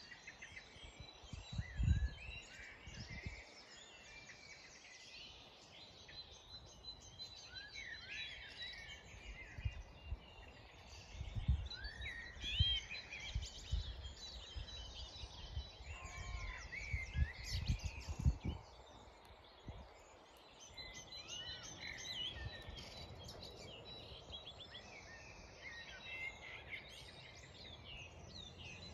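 Spring dawn chorus: many songbirds singing at once, with short rising and falling notes overlapping throughout. A few low thumps on the microphone break in about two seconds in and again around the middle.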